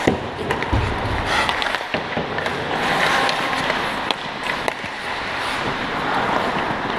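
Ice hockey play close by: skate blades scraping and carving the ice, with sharp clacks of sticks and puck scattered throughout and a dull thump about a second in.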